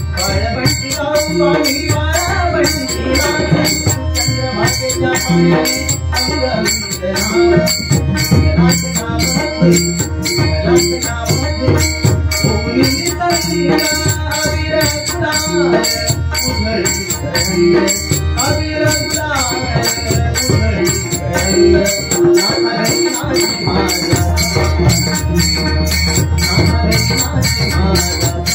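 Instrumental passage of a Marathi bhajan in raga Bhupeshwari: held melodic tones over pakhawaj and tabla drumming, with small hand cymbals clashing in a fast steady beat.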